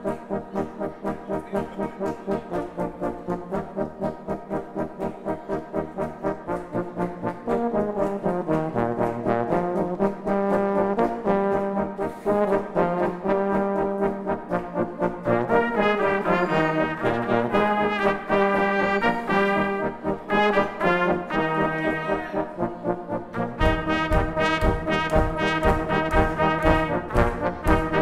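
Brass band of trumpets, flugelhorns, trombones and low brass playing a polka arrangement of a pop dance tune live, over a steady pulsing beat. About 23 seconds in, the low brass pulses come in much stronger.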